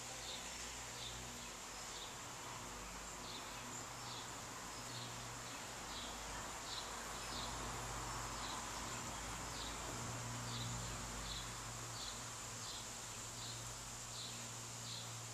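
Outdoor insect chorus: a steady high-pitched buzz with a faint chirp repeating about twice a second, over a low hum.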